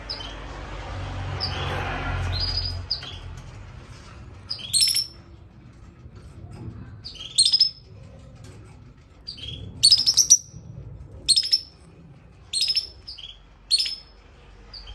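Lovebird calling: a string of short, shrill chirps about a second apart, after a few seconds of rustling from handling.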